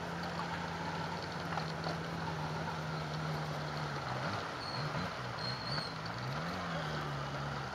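Italjet Buccaneer 250i V-twin motorcycle engine running under way at a steady pitch over wind and road noise. In the second half its pitch dips and rises a few times as the throttle is eased and reopened, then settles again.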